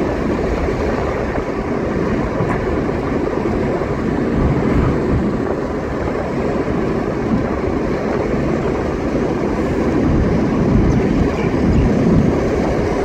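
Steady engine and tyre noise of a car driving along a paved road, heard from inside the cabin.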